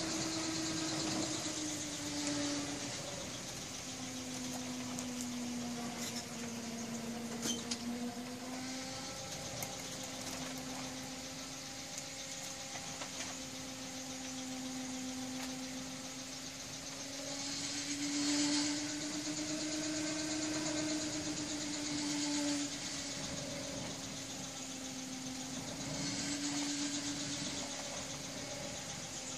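A steady whine from a running 24 V, 1000 W Hummer wind turbine and its wind & solar hybrid controller, wavering slowly up and down in pitch. A rushing noise lies under it and swells a few times.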